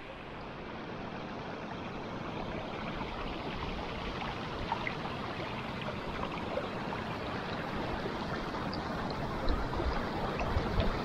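Steady rustling of tall dry grass and brush against legs and clothing while walking, with faint footfalls, growing slightly louder; it cuts off suddenly at the very end.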